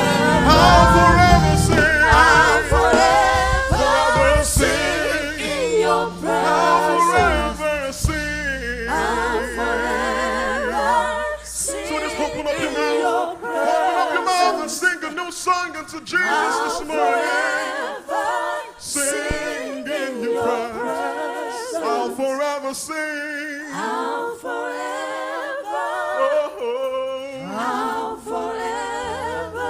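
A man singing a worship song into a microphone, largely unaccompanied, with low held notes underneath that fall away about halfway through.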